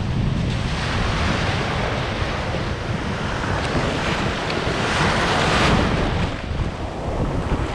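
Sea surf breaking and washing up a sandy beach, with heavy wind buffeting on the microphone; the wash grows louder for a moment a little past the middle.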